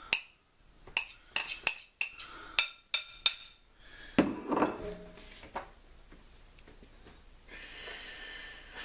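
A metal spoon clinking and scraping against a metal cake pan while Bisquick pizza-crust dough is mixed in it: a run of sharp clinks in the first three and a half seconds, then softer stirring and scraping.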